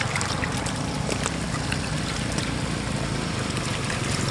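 Shallow muddy water trickling and splashing as hands scoop among catfish, with scattered small clicks.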